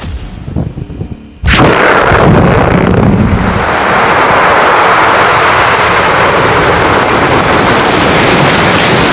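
Explosive building demolition: a few sharp pops, then, about a second and a half in, a sudden loud blast that carries on as a steady roar.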